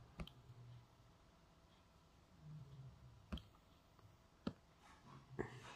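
Four scattered, sharp clicks of a computer mouse against near silence.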